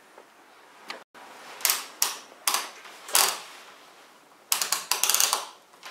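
Clicks and light knocks of tools and parts being handled on a workbench while a steam-generator iron is being repaired: several separate knocks, then a quick run of clicks near the end.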